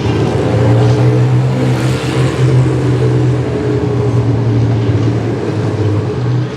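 Vintage race car engine running loud and close at low, fairly steady revs, the pitch wavering slightly.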